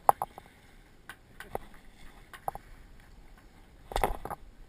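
A string of sharp knocks and clicks: a loud knock with two quick echoes at the start, a few single ones over the next couple of seconds, and a louder cluster of knocks near the end.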